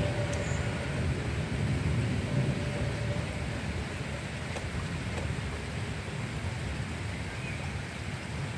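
Thunderstorm ambience: a steady rain hiss under a low rolling rumble of distant thunder, which eases somewhat after the first few seconds.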